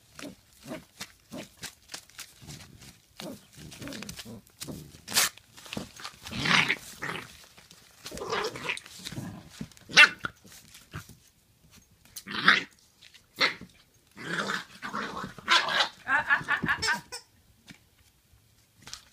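Two puppies play-fighting over a crumpled brown paper bag, growling and barking in short, irregular bursts, with sharp rustles and clicks in between.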